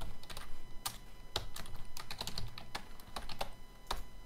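Typing on a computer keyboard: a run of irregular key clicks.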